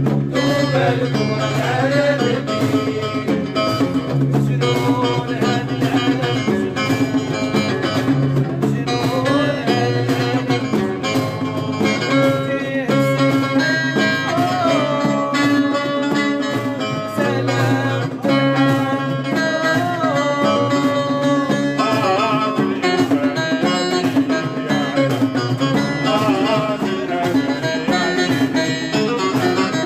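Live music with plucked string instruments over a steady repeating beat, carrying a wavering melody line.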